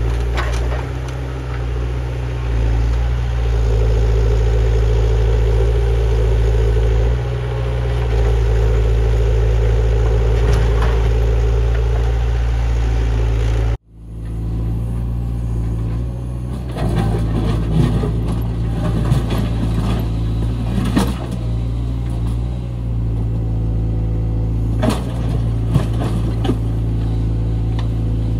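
Menzi Muck A61 4x4 walking excavator's diesel engine running under load, with a steady hydraulic whine over it through the first half. The sound cuts out suddenly about halfway and comes straight back, and after that irregular knocks and clatter sit over the engine.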